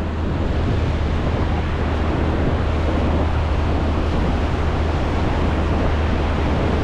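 Surf breaking and washing up the beach, with wind buffeting the microphone as a steady low rumble underneath.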